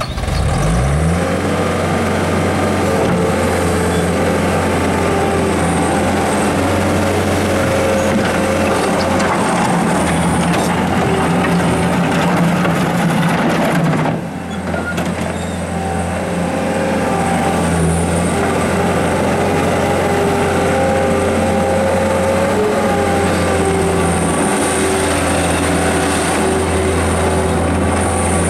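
Caterpillar 262 skid steer loader's turbocharged engine running steadily as the machine drives about, with several higher tones that shift in pitch as it works. The engine comes up to speed in the first second, and about halfway through the sound drops briefly before rising again.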